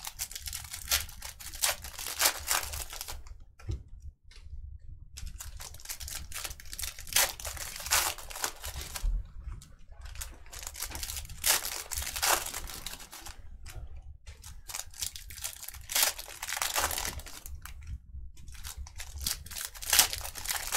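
Trading-card pack wrappers being torn open and crinkled, with cards handled, in irregular bursts of rustling and crackling separated by short pauses.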